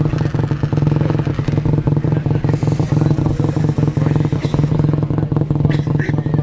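An engine running steadily at a constant speed, a low even hum with a rapid pulse that holds without change.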